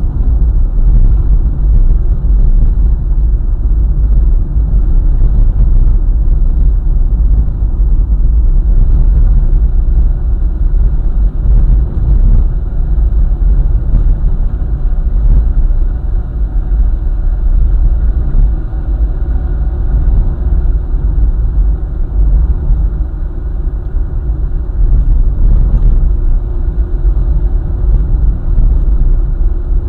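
A car driving on a highway: a loud, steady low rumble of road and wind noise.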